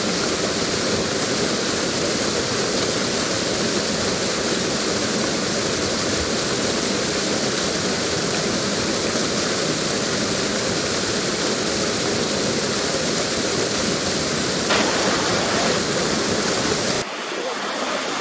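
Niagara Falls water pouring over the brink: a steady, dense rushing. About 17 seconds in it changes abruptly to a thinner, quieter rush with less low rumble.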